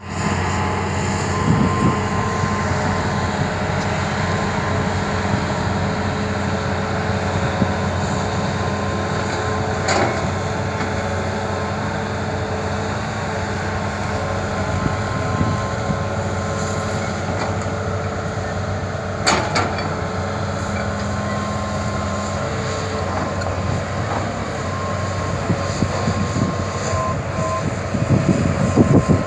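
Hitachi Zaxis 200 excavator's diesel engine running steadily under working load with a steady high whine, as it digs and loads soil. Two sharp knocks, about ten and nineteen seconds in, and some louder knocking near the end.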